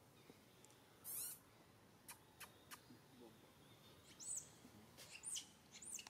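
Faint high-pitched animal chirps: three or four short calls that rise and fall, in the last two seconds, after a brief scratchy burst and a few light clicks.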